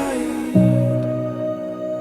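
Soft, slow instrumental background music with held chords; a new chord comes in about half a second in.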